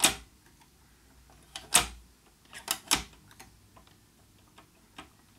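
Sharp mechanical clicks, about five in all at irregular intervals: the drum band selector of a Grundig Satellit 3400 radio being switched between bands, its contacts dirty and the drum sticking in some positions.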